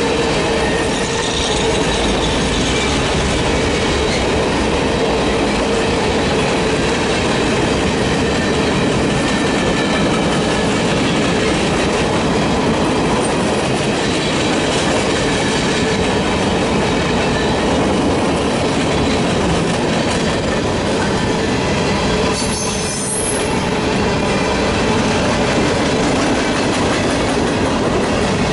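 Freight train's cars rolling past: steady noise of steel wheels running on the rails.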